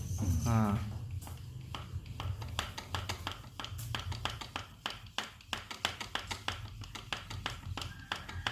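Hand grease gun being worked to pack grease into an earth auger's gearbox: a quick, irregular run of sharp clicks and taps, several a second, over a low steady hum.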